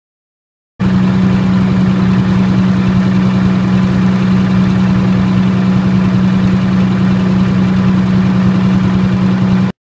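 30 kW military diesel generator running steadily on diesel alone, with a strong constant hum. The sound starts abruptly about a second in and cuts off suddenly near the end.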